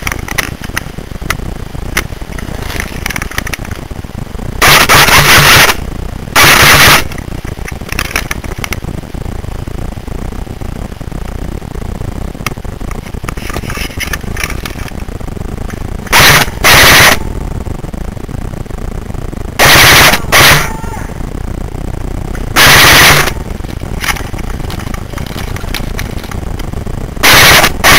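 Airsoft gun firing in short full-auto bursts close to the microphone, eight bursts of about half a second to a second each, loud enough to clip. The bursts come in ones and twos: two about five and seven seconds in, a pair around sixteen to seventeen seconds, a pair around twenty seconds, one about twenty-three seconds in and one near the end.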